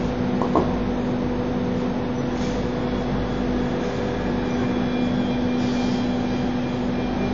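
Steady running hum of an ATC CNC wood router and its dust extraction: an even drone with a constant mid-low tone. Two short sharp clicks about half a second in.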